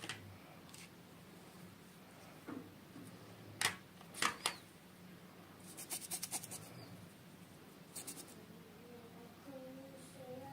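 Small plastic toy pieces and packaging being handled close up: a few sharp clicks, then two quick runs of rattling ticks.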